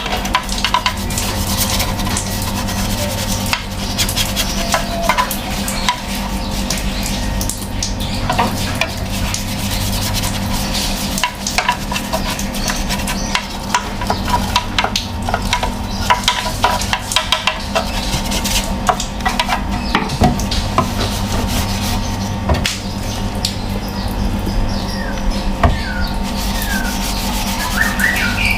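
Handwork on an air-conditioner outdoor unit: rubbing, scraping and light clattering over a steady low hum, with a few short chirps near the end.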